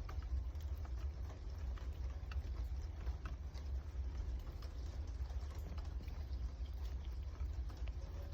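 Cat eating, with small irregular clicking and crunching sounds of chewing over a steady low rumble.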